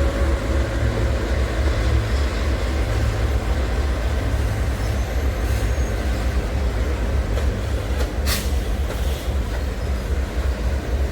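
Freight train wagons rolling past with a steady low rumble of wheels on rail, with one sharp clack about eight seconds in.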